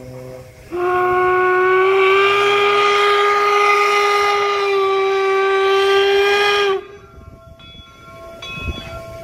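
Steam whistle of a replica 4-4-0 steam locomotive blowing one long, steady blast of about six seconds, starting about a second in and cutting off sharply. Quieter running sounds of the locomotive follow.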